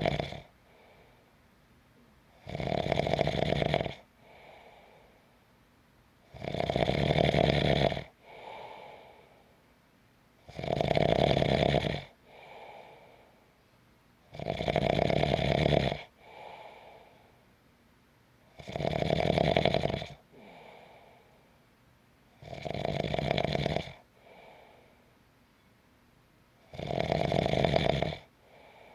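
Steady, rhythmic snoring: a loud snore about every four seconds, each lasting about a second and a half and followed by a fainter, shorter breath.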